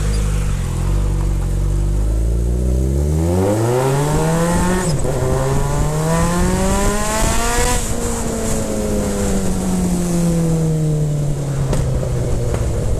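Suzuki GSX650F's inline-four engine, its exhaust baffles removed, idling and then pulling away. The revs climb, dip briefly at a gear change about five seconds in, climb again, then fall away slowly as the throttle is rolled off.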